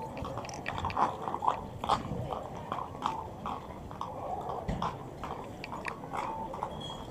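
Horses' hooves knocking irregularly on the paved street as mounted horsemen walk past.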